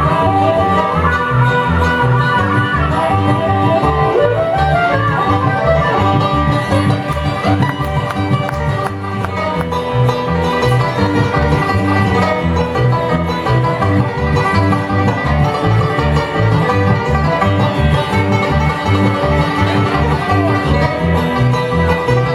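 Live bluegrass band playing, plucked and bowed strings over a steady bass beat, with no pause.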